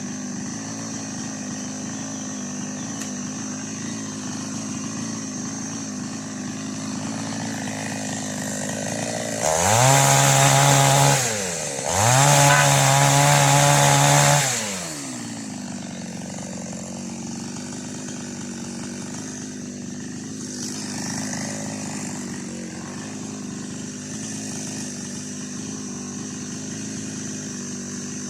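Preco 18-inch two-stroke chainsaw idling steadily, then revved to full speed twice, about ten and twelve seconds in, each time held for a second or two before dropping back to idle.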